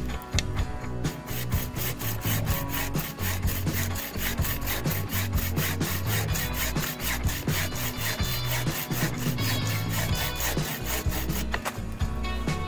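Handmade bucksaw cutting through a green branch, fast even strokes at about five a second that stop near the end, with background music underneath.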